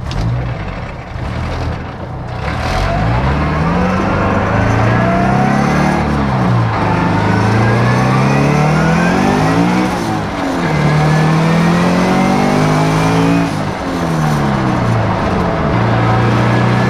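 Turbocharged Scion FR-S flat-four engine accelerating hard, its revs rising through two gear changes about six and a half and ten seconds in, then holding steady with a brief ease-off about thirteen and a half seconds in. This is a full-boost test pull on the 14.5 psi map, run to check for a misfire.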